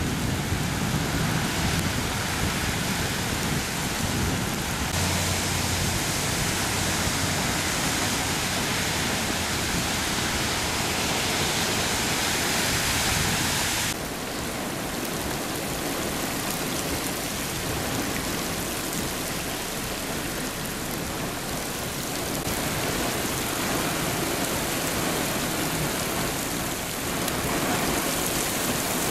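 Heavy rain pouring down onto flooded pavement and standing water, a steady hiss that changes level abruptly several times. In the first few seconds a minivan's tyres throw up water as it drives through the flooded street.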